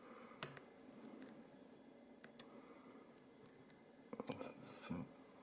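Faint metallic clicks of a shim and pick working in a brass padlock's core: a sharp click about half a second in, a few light ticks, then a quick cluster of clicks near the end.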